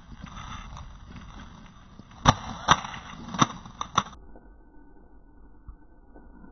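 Airsoft gun firing about five single sharp snapping shots at uneven intervals over roughly two seconds, over faint background noise; afterwards only a dull, muffled noise remains.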